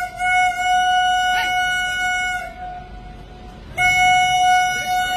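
A locomotive's horn sounds a long, steady single-pitched blast that stops about two and a half seconds in, then a second long blast starts about a second later. These are warning blasts at a level crossing with bulls on the track ahead of the train.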